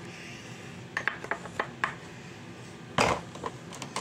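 Small skincare bottles and a pump dispenser being handled, clicking and clinking: a handful of light clicks about a second in, and a louder knock about three seconds in.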